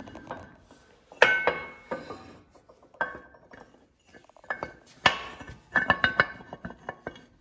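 An aluminium front wheel carrier knocking and clinking against the steel plates of a workshop press as it is set in place. It makes a series of sharp metallic clanks with short ringing tails, the loudest about a second in and a cluster around five to six seconds in.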